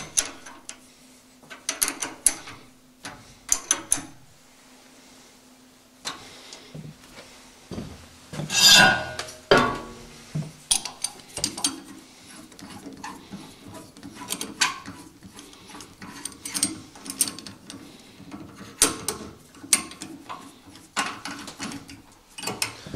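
Metal parts and hand tools being worked on a drill press: a wrench tightening the clamp around the quill and a mortising chisel and bit being fitted up to the chuck, heard as scattered clicks, clinks and scrapes. A longer, louder scrape comes about nine seconds in.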